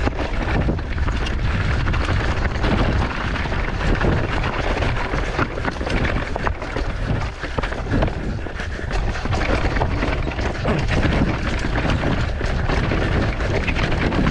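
Mountain bike riding down a rough, rocky and muddy trail: tyres rolling over dirt and stones, with frequent knocks and rattles from the bike as it hits rocks and bumps. Wind rumbles steadily on the microphone throughout.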